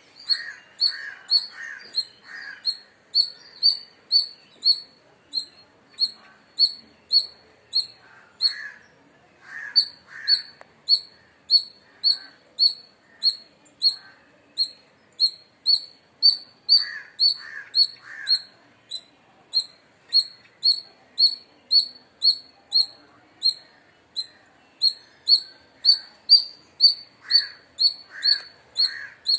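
Indian palm squirrel calling: a steady run of short, high, bird-like chirps, about one and a half a second, with lower, rougher calls in groups of two or three now and then.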